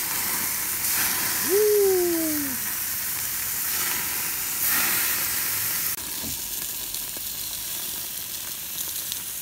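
Beef burger patties sizzling on a Coleman InstaStart portable grill as they are flipped with a silicone spatula, a steady frying hiss. A short rising-then-falling hum rises over it about two seconds in, and the sizzle drops and carries on after an abrupt cut about six seconds in.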